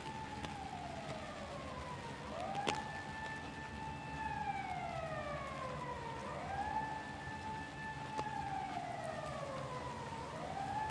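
Emergency vehicle siren wailing: a quick rise, a held tone, then a slow downward glide, repeating about every four seconds, over the steady hiss of heavy rain. A single sharp tap of a drop on an umbrella sounds a few seconds in.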